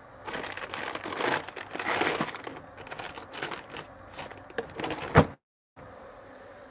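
Irregular rustling and crinkling handling noise with scattered sharp clicks, ending in one louder click about five seconds in and a brief cut to silence.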